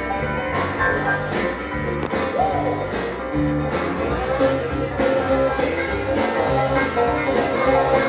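Music with a steady beat, played back from a vinyl record on a Yamaha PX-2 linear-tracking turntable.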